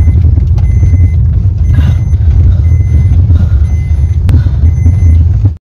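A car driving on a rough dirt track, heard from inside the cabin: a loud, steady low rumble of engine and road. Over it comes a short high beep about once a second, and there is a sharp knock about four seconds in. The sound cuts off suddenly near the end.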